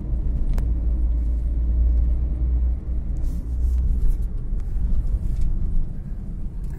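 A car driving, heard from inside the cabin: a steady low rumble of engine and road noise, with a few light knocks and rattles.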